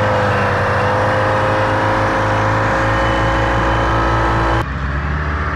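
Heavy diesel forklift engine running steadily as it drives down the road, heard from a vehicle following close behind, with a steady droning note. About four and a half seconds in it changes suddenly to a duller, muffled engine sound.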